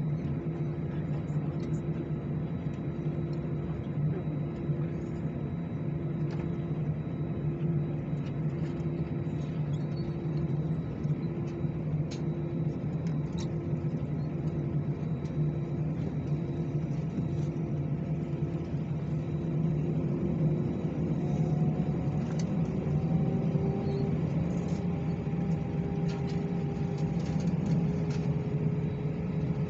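Steady jet-engine and cabin drone heard from inside an Airbus A319 cabin beside the wing, with a pulsing note over the low hum. About two-thirds of the way through, new engine tones come in and rise slowly in pitch as the sound grows a little louder, as the engine spools up.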